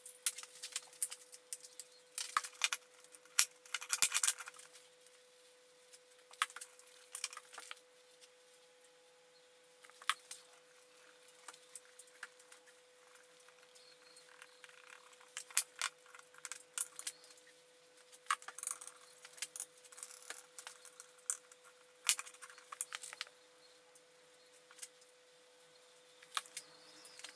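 Light knocks and clicks of wooden boards being handled and set against each other on a workbench, with quieter scraping and tapping between as glue is brushed and squeezed onto their edges. A faint steady hum runs underneath.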